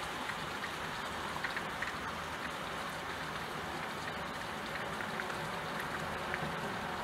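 Steady rain falling, a constant hiss with scattered individual raindrop taps.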